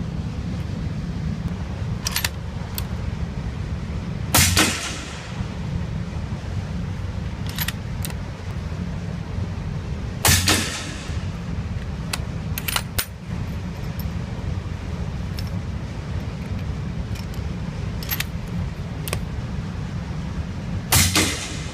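Three suppressed shots from a Remington 700 bolt-action rifle firing subsonic .308 through an AAC SDN-6 suppressor, each a sharp crack with a short ringing tail, the second about six seconds after the first and the third about eleven seconds later. Light metallic clicks of the bolt being worked fall between the shots, over a steady low rumble.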